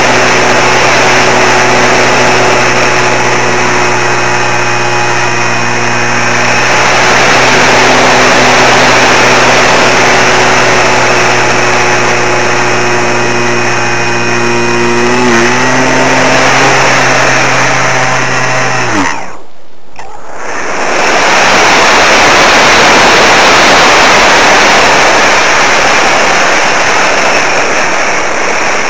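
Electric RC model plane's motor and propeller whining steadily over loud rushing air noise. About two-thirds through, the motor tone slides down and cuts out, there is a brief lull, and then only the rushing air noise continues, with no motor tone.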